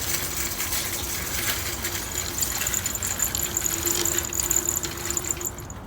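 A small electric motor running with a steady high whine and a lower hum over rapid clicking and rattling, stopping abruptly near the end.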